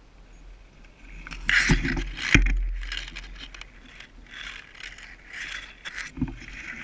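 Rustling and scraping from movement through brush, with two sharp knocks close together about two seconds in.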